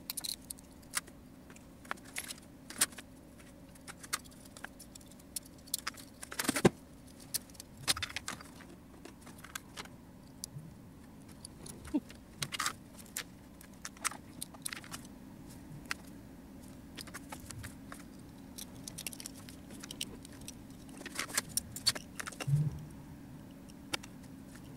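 Small plastic model-kit parts being handled, snapped from their runners and pressed together: scattered light clicks and rattles, one sharper snap about six and a half seconds in, over a faint steady hum.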